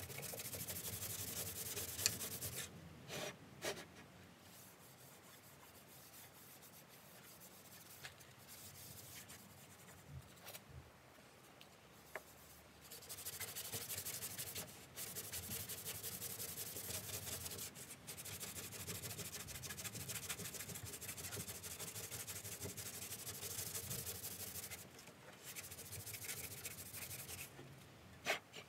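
Sandpaper worked by hand over body filler on a classic Mini's steel rear panel: quick back-and-forth rubbing strokes in spells, with a quieter stretch of several seconds in the first half and a few sharp clicks.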